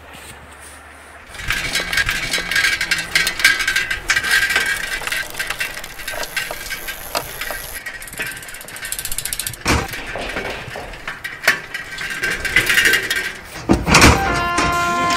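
Bicycle freewheel ratchet clicking rapidly, starting about a second and a half in, as though a wheel is spinning freely. A louder crash comes near the end.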